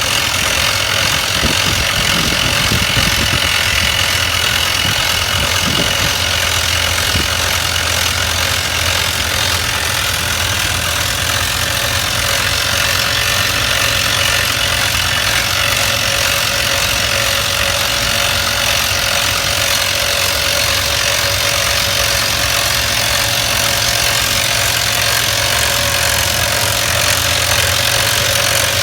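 Hard-rock drilling machine running steadily: a loud, continuous mechanical noise that never pauses.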